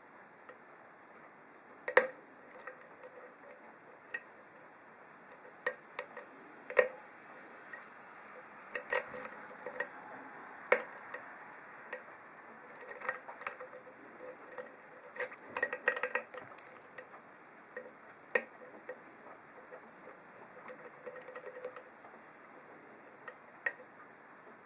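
Lock picking: a steel deep hook probing and lifting the pins of an ASSA 7-pin pin-tumbler cylinder under a tension wrench, making irregular sharp clicks and little ticks. A few clicks are louder, and quick clusters of ticks come around the middle.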